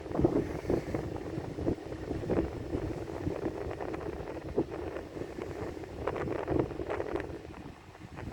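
Strong storm wind buffeting the microphone: a dense, uneven rumble with many short gusts, easing off near the end.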